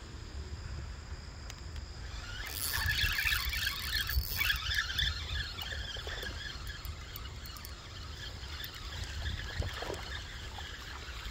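Spinning reel working hard for about two seconds, a few seconds in, as a hooked bass is fought in, followed by scattered light ticks from the reel.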